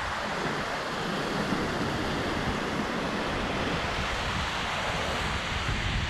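Waterfall's water rushing in a steady, even hiss.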